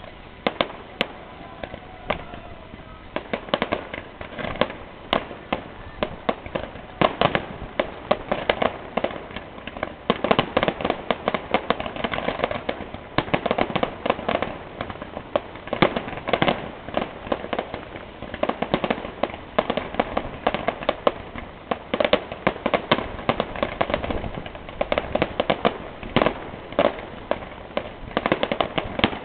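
Fireworks display: a rapid, irregular barrage of bangs and crackling shell bursts. It is sparse at first and becomes nearly continuous about three seconds in.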